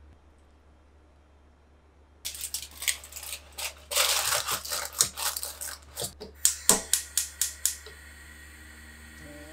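Aluminium foil crinkling as it is crumpled and pressed down over a pot of mushrooms as a drop lid, a dense run of sharp crackles starting about two seconds in and stopping about two seconds before the end.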